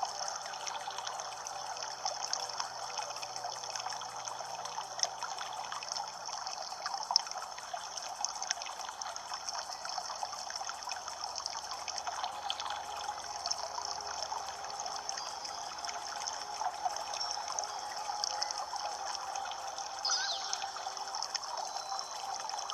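Water trickling and babbling steadily, a continuous run of small splashes and gurgles.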